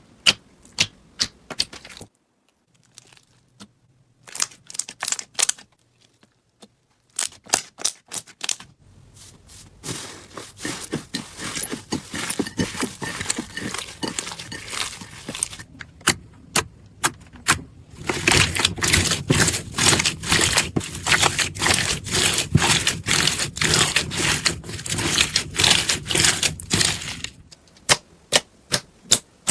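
Slime being squeezed and poked by hand, giving sharp clicking pops that are spaced out at first, then thicken into a dense crackle that is loudest in the second half and thins back to single clicks near the end.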